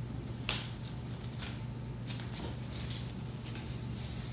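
Soft rustles and light clicks of handling, a few spaced about a second apart, over a steady low hum.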